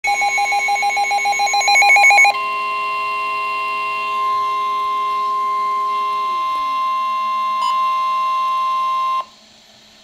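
NOAA weather radio receiver sounding a severe thunderstorm warning alert: rapid pulsing electronic beeps for about two seconds, then the steady warning alarm tone. The tone stops abruptly about nine seconds in and leaves a faint hiss.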